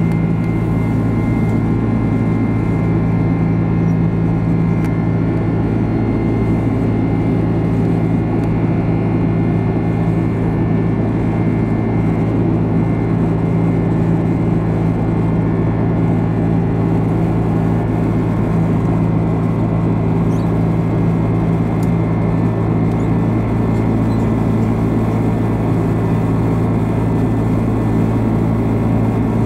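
Steady cabin noise of a Boeing 767 climbing, heard from a window seat beside the engine: a constant low engine drone with a few steady humming tones under an even rush of airflow.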